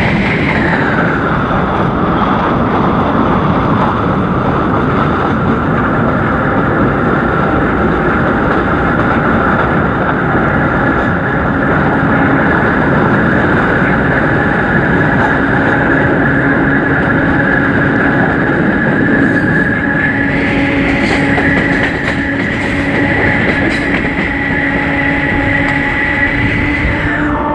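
CPTM electric train unit 1115 running with a loud, steady roar and a whine above it. The whine drops in pitch at the start, holds steady, rises about twenty seconds in and falls away again near the end.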